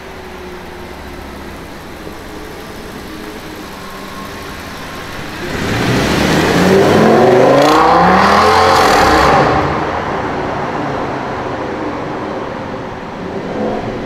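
Audi S8's 5.2-litre V10 at low speed, then accelerating hard in a tunnel about five seconds in. The engine note rises steeply and drops back at upshifts, with tunnel echo, then fades as the car pulls away.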